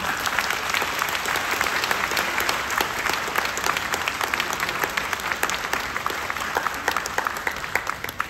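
Audience applauding: many hands clapping together, gradually dying down toward the end.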